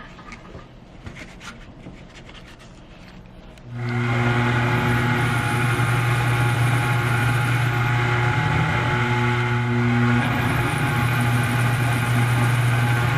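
Light clicks and rubbing of handling, then about four seconds in an electric shop machine switches on and runs steadily with a low, even motor hum.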